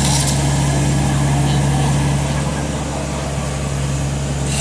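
A heavy vehicle's engine idling steadily with a low, even hum, and a short hiss right at the start.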